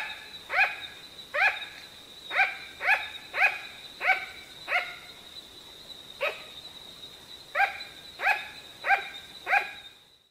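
Sugar glider giving a series of about thirteen sharp, dog-like yapping barks, one or two a second with a short pause in the middle. A thin steady high-pitched tone runs underneath.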